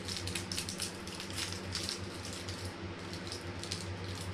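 Crinkling of small individual wrappers being pulled off hard mint sweets: a run of quick, light crackles and clicks over a low steady hum.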